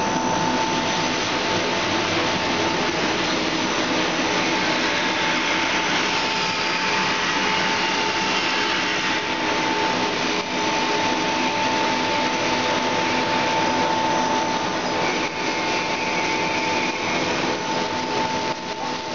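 Snack extruder and roller forming-and-cutting machine of a fried-snack production line running: a steady machine noise with a constant whine.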